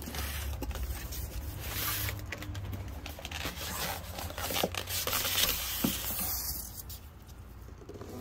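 Cardboard box and styrofoam packing rubbing and scraping as a boxed portable television is handled and slid out, with scattered light knocks; it quietens near the end.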